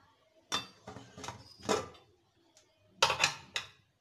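Aluminium pressure cooker being opened: a series of metal clanks and scrapes as the lid is twisted free of the rim and lifted off, the loudest near the end. The cooker has been switched off after its three whistles.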